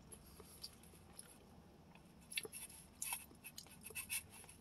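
A person chewing food close to the microphone: faint at first, then a scatter of short mouth clicks from about halfway through.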